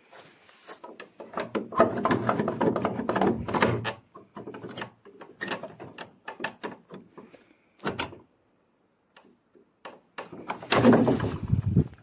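A metal slide bolt on a wooden plank door rattling and clicking as it is worked, with many small knocks. Near the end the door scrapes and knocks loudly as it is pulled open.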